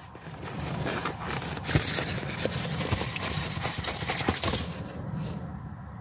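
Handling noise from rummaging in a zippered fabric carry case and drawing out a cable: irregular rustling of fabric with many small clicks and knocks of plastic.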